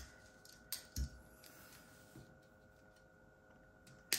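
Faint clicks and light taps of hand tools and copper jewellery wire being handled, with a sharper snip near the end as flush cutters cut the wire.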